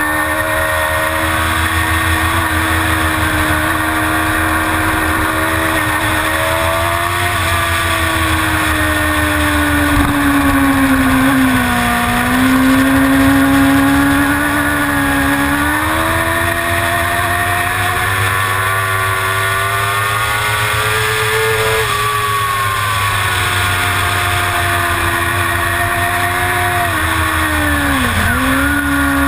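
Suzuki GSX-R750 inline-four engine at sustained high revs through a race lap, its pitch rising and falling with throttle and gear changes, with a sharp dip and recovery near the end.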